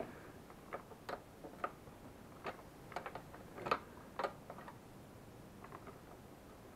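Faint, irregular small clicks and taps from hands working in among the plastic bodywork and wiring of a small ATV, reaching in to free the ignition coil. The two loudest clicks come a little past the middle.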